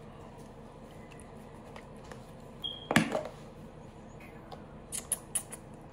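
Small objects being handled: one sharp knock about three seconds in and a few lighter clicks near the end, over a steady low hum.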